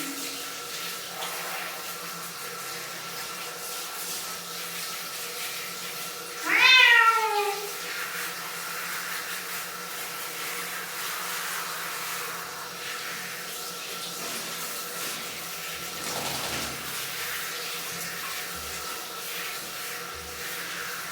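A domestic cat meows once, about six and a half seconds in: a single strong call that rises and then falls in pitch. A steady background hum runs underneath.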